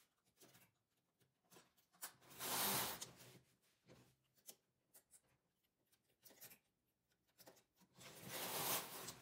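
Carriage of a midgauge (6 mm) knitting machine pushed across the needle bed twice, each pass a noisy slide of about a second, about two seconds in and again near the end. Light clicks and taps of handling fall between the passes.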